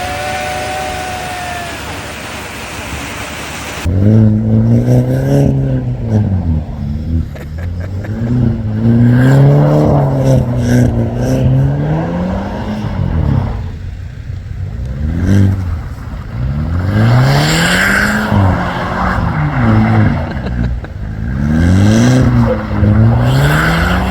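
A steady rushing noise of wind and snow for about four seconds, then a vehicle engine revving hard, its pitch climbing and falling over and over, with bursts of hiss in between, as it drags a homemade snow-clearing rig of a fence and tires.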